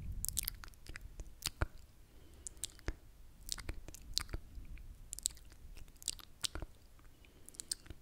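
Close-miked ASMR mouth sounds: irregular wet clicks and smacks of the lips and tongue, coming singly and in quick clusters.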